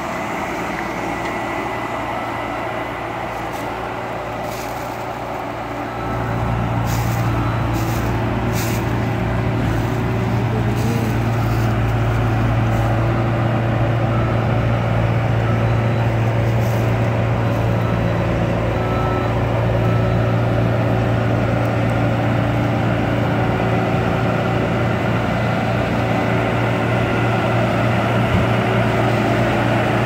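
Bobcat S300 skid-steer loader's diesel engine running, throttled up about six seconds in to a louder, steady drone as the machine works and drives. A few light clicks come over it in the first half.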